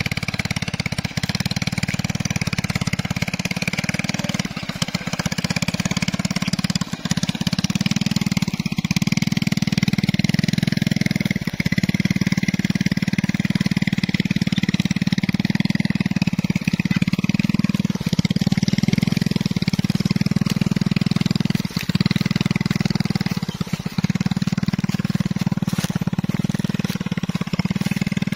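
Small step-through motorcycle engine running steadily under load as it pulls a hand-guided plow through the soil, with a few brief dips in level.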